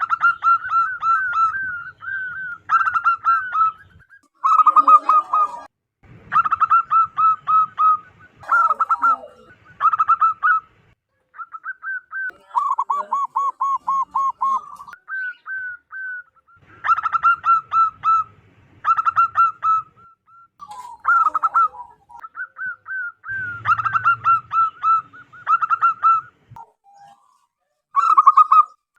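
Zebra dove (perkutut) singing: repeated phrases of rapid staccato cooing notes, each phrase one to two seconds long with short pauses between.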